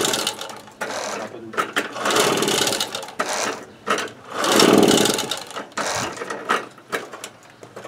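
Two-stroke engine of a Motobécane moped being turned over by hard pedalling on its stand, the pedal drive and engine whirring in three long surges without firing: the spark plug cap has been left off.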